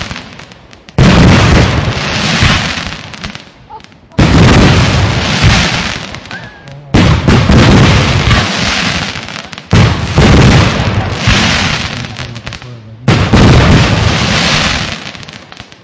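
Aerial fireworks bursting: five loud bangs about every three seconds, each trailing off over the next two to three seconds.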